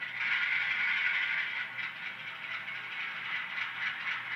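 Model train running: an Atlas RS-3 locomotive with an ESU LokSound decoder hauling a long string of freight cars, giving a steady, wavering hissing whir with rattle from the rolling cars. The noise is the decoder's back-EMF motor control rather than the motor itself.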